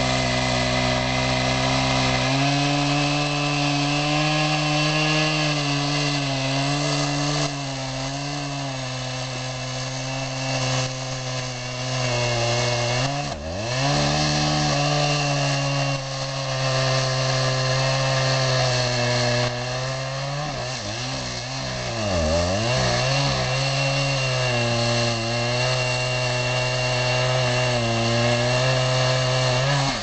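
Husqvarna 3120 XP chainsaw, a large two-stroke saw, running at high revs while cutting into the base of a big burnt tree trunk. Its engine note dips and recovers twice, once before the middle and again later, as the saw is loaded in the cut.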